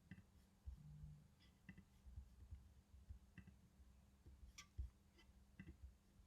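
Faint computer mouse clicks, several of them spaced a second or so apart, over a low steady hum.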